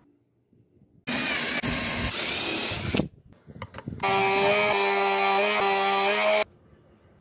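Small electric mini table saw running and cutting PVC sheet, in two bursts of about two seconds each that start and stop abruptly. The first is mostly rasping cutting noise; the second carries a steady high motor whine.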